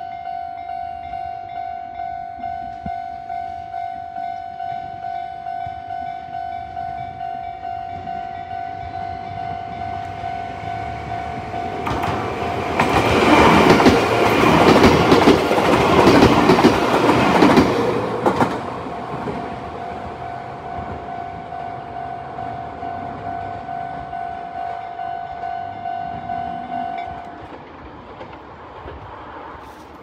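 Japanese level-crossing warning sounder ringing in an even, repeating pattern: the older standard crossing tone of the Chichibu Railway. About twelve seconds in, a stainless-steel Chichibu Railway electric train passes close by for about six seconds. Its wheels clatter over the rail joints and drown out the bell, which stops a few seconds before the end as the crossing clears.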